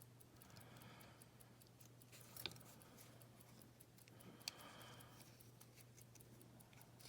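Near silence: room tone with a steady low hum and two faint clicks about two seconds apart.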